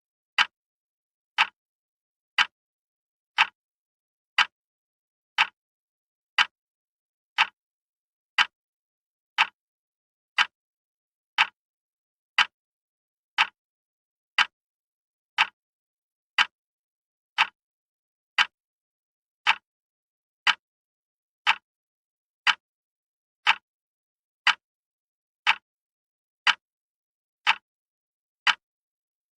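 Wall clock ticking steadily, one sharp tick a second with silence between ticks.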